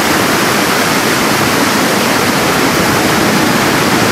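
Whitewater rapids rushing with a loud, steady hiss.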